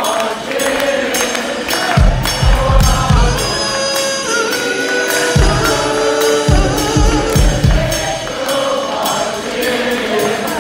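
Live funk brass band music in a breakdown, with a steady beat of hand claps and tambourine. Voices sing along, and the bass drum comes in briefly twice.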